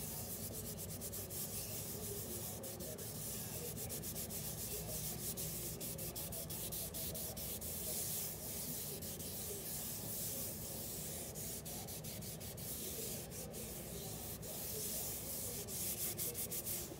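Norwex netted dishcloth with cleaning paste scrubbing a stainless-steel sink basin: continuous rubbing, scouring off a rust ring.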